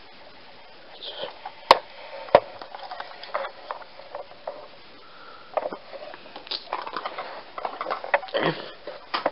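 Metal parts of a hatchet multitool being handled: two sharp clicks about a second apart near the start, then a run of small clicks and rattles in the second half.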